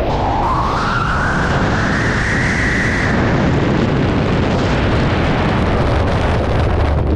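Freefall wind rushing over the skydiver's helmet camera microphone. A whistle rises in pitch over the first three seconds and then fades into the rush.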